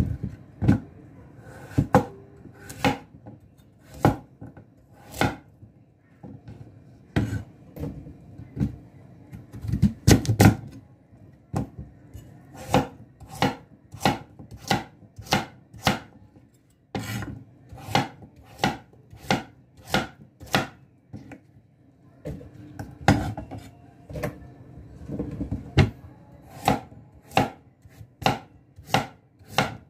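A cleaver chops pumpkin on a wooden cutting board, each stroke knocking on the board. The strokes are irregular at first, then settle into a steady beat of about two a second.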